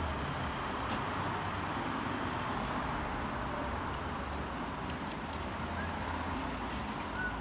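Steady outdoor urban background noise with a low hum and a few faint clicks.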